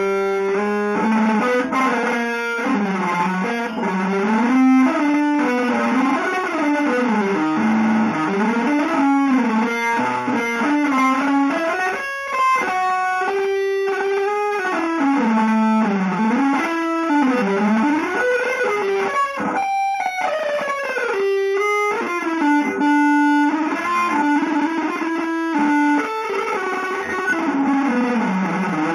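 Electric guitar playing a fast single-note line that winds up and down in runs, with held notes between them.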